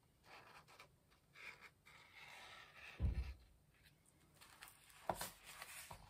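Black Posca paint marker scratching in short, faint strokes across a textured art-journal page, then a dull thump about three seconds in and another just after five seconds as the journal is handled and turned on the table.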